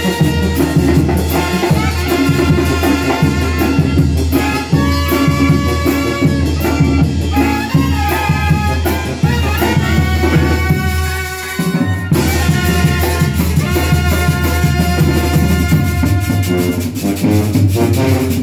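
Live Mexican banda brass band playing a lively tune: trumpets, trombones and saxophones over bass drum and cymbal. The music briefly thins about two-thirds through before the full band comes back in.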